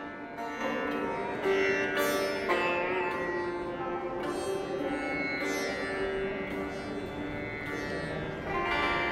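Sitar played solo: plucked notes that ring on and overlap, with strong strokes about a second apart early on and a louder stroke near the end.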